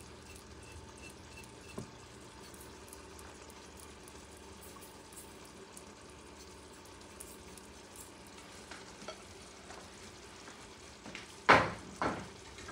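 Wooden spoon scraping spice mix off a plate into a stainless steel mixing bowl: faint, light scratching. Two sharp knocks near the end, the first much louder than everything else.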